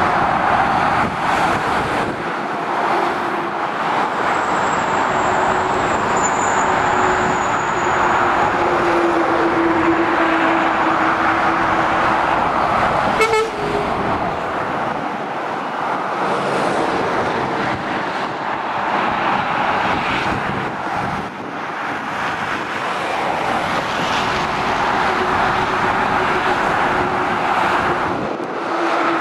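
Motorway traffic: a steady rush of lorry and car tyres and engines. About halfway through a lorry passes close below, and a short horn toot sounds at the same moment.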